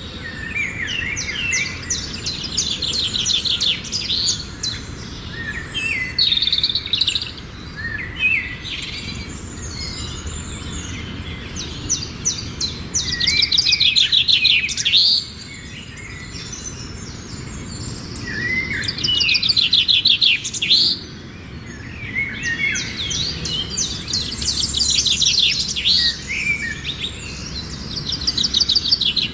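Bird singing: a fast trill of rapid high notes lasting a second or two, repeated every few seconds, with shorter chirps and whistled notes in between.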